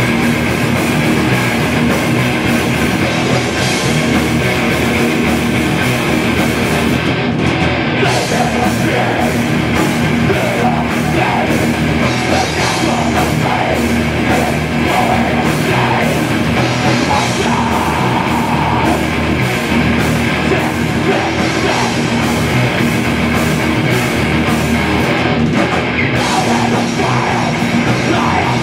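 Thrash metal band playing live and loud: distorted electric guitars over fast drum-kit playing with cymbals. There are two short breaks in the cymbals, about a quarter of the way in and near the end.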